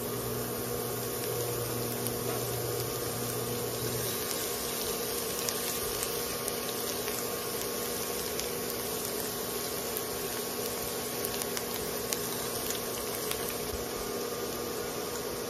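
Minced garlic sizzling in hot oil in a small pan, a steady fizz with scattered little pops, over the steady hum of an induction cooker; a lower hum stops about four seconds in.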